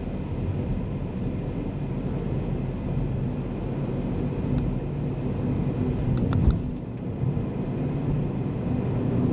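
Steady engine and road noise of a vehicle driving along a highway, with a brief knock about six and a half seconds in.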